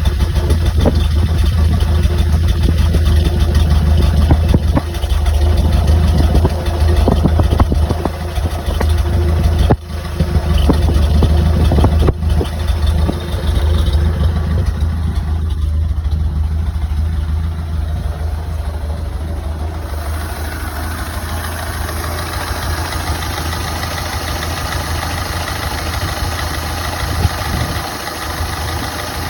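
Ford Model A four-cylinder flathead engine running with a misfire. It sounds uneven and knocky over the first half, with a brief dropout about ten seconds in, then settles into a steadier run.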